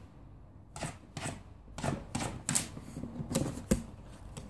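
An irregular series of sharp clicks and taps, about seven over four seconds, the last ones the loudest.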